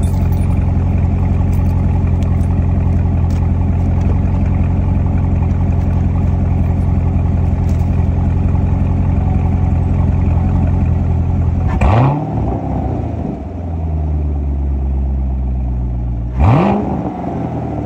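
A Chevrolet C7 Corvette Stingray's 6.2-litre LT1 V8 runs through a Borla aftermarket exhaust, idling steadily after a cold start. It is blipped twice, about 12 and 16.5 seconds in, each a quick rise and fall in pitch. After the first blip the idle settles lower.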